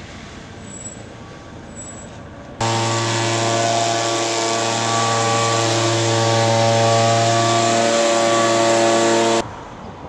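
A motor running steadily at an even pitch for about seven seconds, starting and stopping abruptly.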